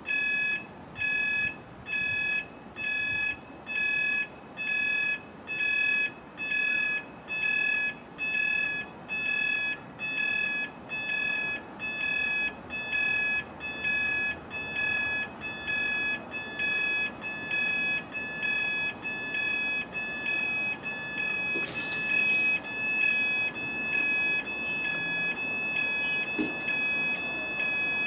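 Railway level crossing warning alarm beeping about once a second, each beep a high multi-tone chord, sounding while the road signals flash and the barriers come down. A couple of sharp knocks come in the last third.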